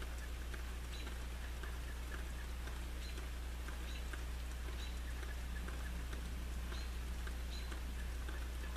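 Light rain during a thunderstorm: scattered drops pattering and ticking, several a second, over a steady low hum.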